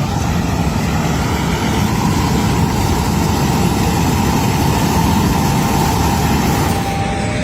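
Large farm tractor running steadily while travelling, towing an empty grain cart, with a faint steady whine over the engine for much of the time.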